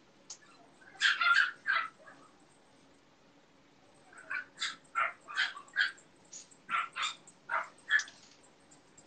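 A dog barking in short, sharp barks: three close together about a second in, then a quick run of about a dozen from about four to eight seconds in.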